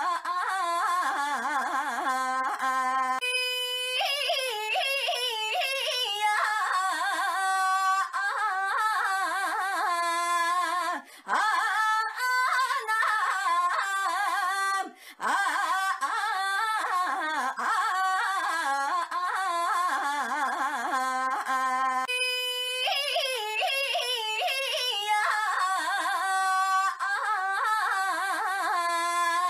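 A woman's high-pitched voice drawing out a wavering, sing-song "Ainyaaa" cry again and again, a looped clip whose pattern repeats about every nineteen seconds, broken by a few brief dropouts.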